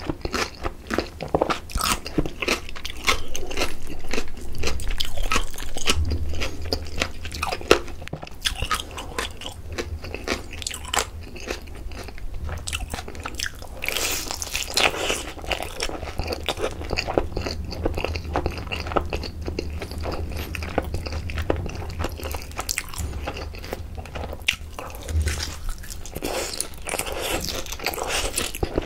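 Close-miked eating of sauced Korean fried chicken drumsticks: crunchy bites into the coated skin and steady wet chewing, with a louder crunchy bite about halfway through.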